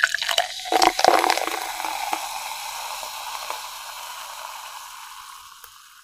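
Glass shattering: a loud crash with a cluster of sharp clinks and impacts in the first second and a half, then a long hiss-like tail of settling fragments that fades away near the end.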